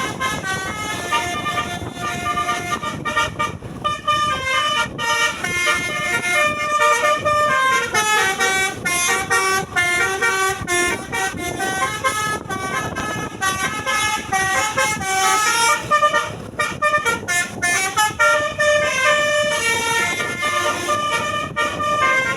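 Telolet musical horn on a Basuri tour bus playing a long, unbroken tune of quick notes that step up and down.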